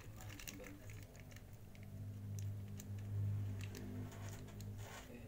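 Thin plastic fish bags crinkling and ticking as fingers handle them in a tub of water, with light water sounds, over a steady low hum.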